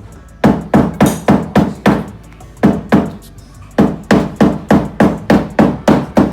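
Rapid, repeated hammer blows, about four a second, pausing briefly a little past halfway and then resuming.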